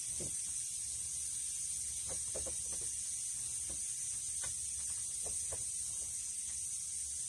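A steady high-pitched hiss runs throughout, with a handful of short, faint clicks and scrapes in the middle as pliers grip and work old staples out of a wooden door jamb.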